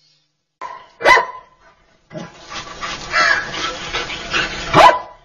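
A dog barking: one sharp bark about a second in and another, louder, near the end, with continuous noise between.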